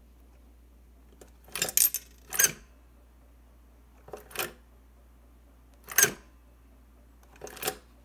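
Cast iron mechanical bank being operated: a series of sharp metallic clacks and a coin dropping as the lever is pressed and the eagle figure tips forward over the nest, in about five separate clusters of clicks.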